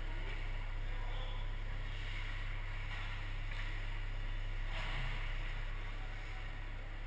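Indoor ice rink ambience during a youth hockey game: a steady low hum under the faint scraping of skates on the ice, with a brief louder rush of noise about five seconds in.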